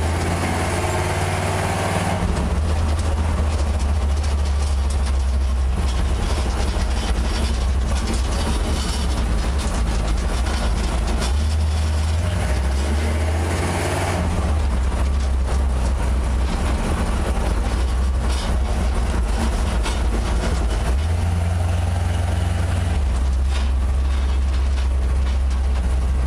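First-generation 350 small-block Chevy V8 with Vortec heads, running while the 1973 VW Beetle it powers drives, heard from inside the cabin. It makes a steady, deep note whose pitch shifts up and down a few times.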